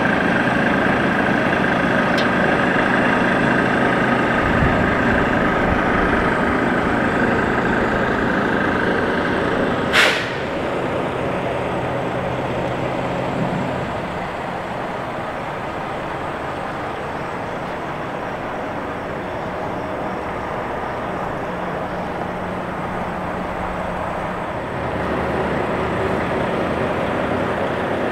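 Ford Mustang GT's 4.6-litre V8 idling steadily, louder and fainter as the listening point moves around the car. There is one sharp click about ten seconds in.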